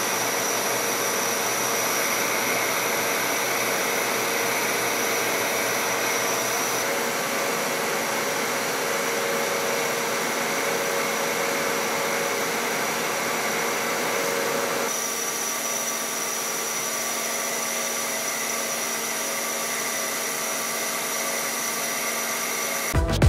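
Hwacheon T-REX 210 CNC lathe hard-turning hardened high-speed steel: a steady machine whir and hiss from the spindle and cutting, with a few steady tones, its character shifting abruptly about seven and fifteen seconds in. Electronic music cuts in at the very end.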